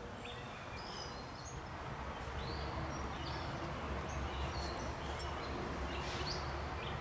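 Outdoor ambience: a steady low rumble with scattered short bird chirps, the rumble growing a little louder about halfway through.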